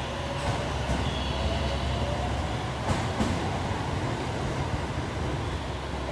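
A 521 series electric train accelerating out of the platform: wheels rumbling on the rails, with a faint rising motor whine early on and two sharp clacks about three seconds in as the rear cars pass.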